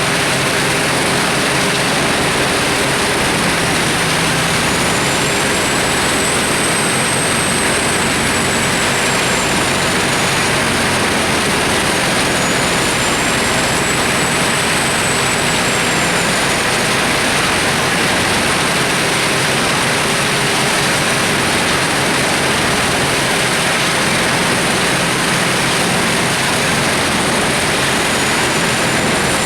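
Large mobile wood chipper running loud and steady. Its dense, even noise carries a faint high whine that rises and falls twice and starts rising again near the end.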